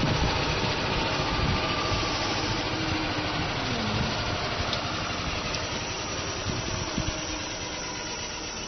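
Golf cart engine running as it drives along, with tyre and road noise; the sound slowly eases off toward the end.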